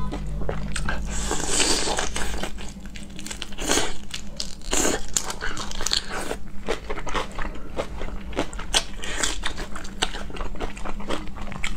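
Close-miked wet eating sounds of marinated raw shrimp: sucking, biting and chewing, with many short clicks and smacks and a few longer slurps.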